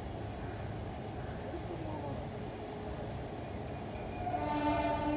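Indian Railways electric locomotives standing with their machinery running: a steady low hum and a thin, steady high-pitched whine. About four seconds in, a louder pitched tone with several overtones joins.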